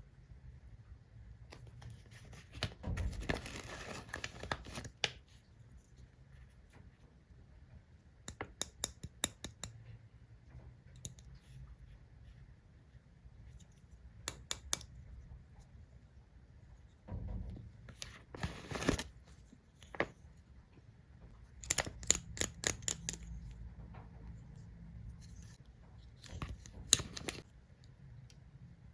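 Stationery and its packaging being handled during an unboxing: brief spells of rustling or tearing, and several quick runs of sharp clicks.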